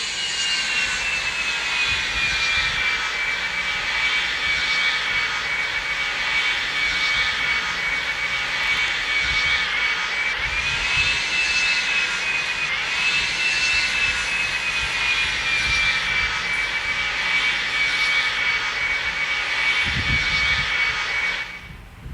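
Boeing 757 jet engines running with a steady rushing noise and a high whine. About halfway through, the whine dips and then rises in pitch twice, then slowly falls back. Near the end the sound cuts off abruptly.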